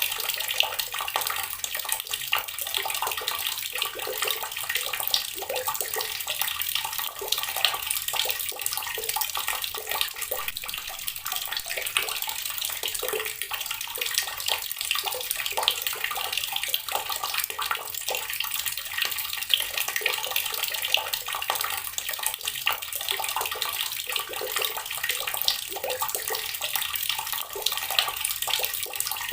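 Water running from a tap in a steady stream, splashing into water below with many small spatters.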